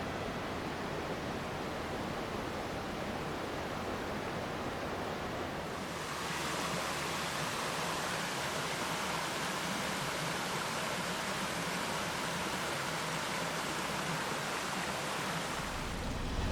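Steady rushing water, like a waterfall or stream. About six seconds in it cuts abruptly to a brighter, hissier rush that holds steady to near the end.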